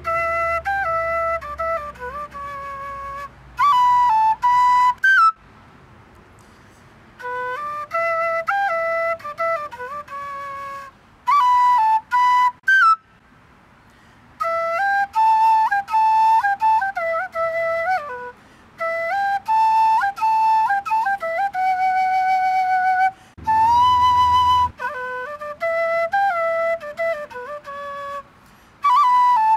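PVC quena, an Andean notched end-blown flute, playing a melody in short phrases separated by brief breathing gaps, with quick runs up to loud high notes.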